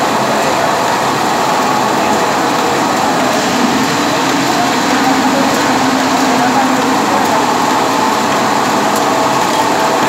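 Automatic can seaming machine and its can conveyor running: steady, loud machine noise with no let-up.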